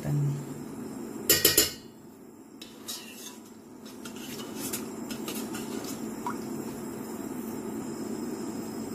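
Metal spoon clinking against a stainless steel pot of milk and ghee: a quick cluster of knocks about a second and a half in, then a few faint taps, over a low steady hum.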